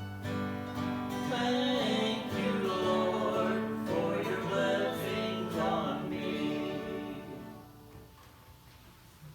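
Sung music with instrumental accompaniment: a singing voice over long held chords, with the final phrase dying away about eight seconds in.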